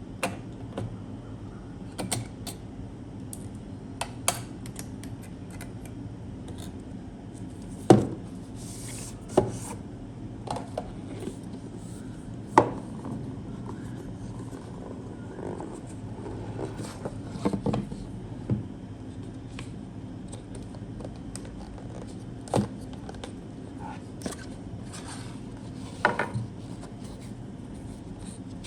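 PC parts and tools being handled on a desk: scattered clicks, taps and knocks, a few of them sharper, over a steady low hum.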